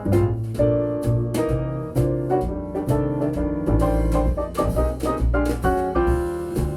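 Jazz piano music with double bass and drums, played back through a Grundig Super HiFi Box 2500 loudspeaker for a listening test.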